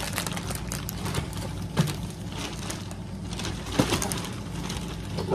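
Plastic packaging rustling and crinkling as it is rummaged through, with two sharper crackles, over a steady low background hum.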